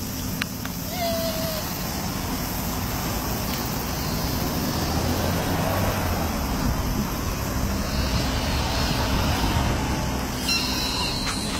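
Steady road-traffic noise, with a low vehicle rumble swelling through the middle. About a second in there is a brief high-pitched call.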